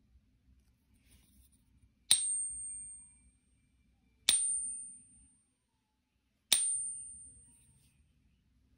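Counterfeit 1 oz American Gold Eagle coin held in a Pocket Pinger and tapped with a wooden dowel three times, about two seconds apart. Each tap gives a sharp high ping that fades out in about a second; the short ring marks the coin as a counterfeit, not 22k gold.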